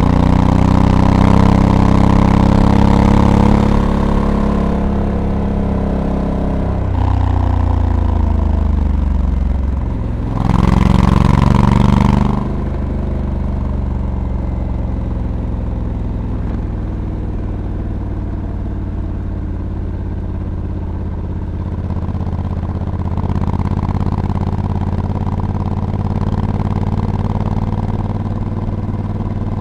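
Honda Africa Twin DCT's 1084 cc parallel-twin engine pulling under throttle, its pitch rising and falling as the automatic dual-clutch gearbox shifts. There is a sharp burst of throttle about eleven seconds in, then steadier, lighter running for the rest.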